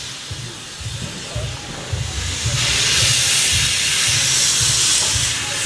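Steam tank locomotive standing and hissing steam. The hiss grows louder about two and a half seconds in.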